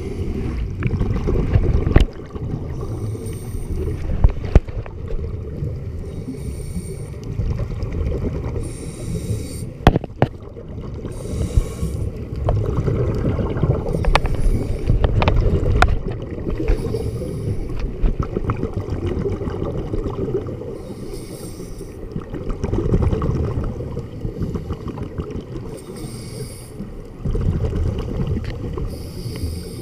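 Scuba diver's breathing heard underwater: a regulator with exhaled bubbles hissing out every few seconds over a steady low rumble, with a few sharp knocks.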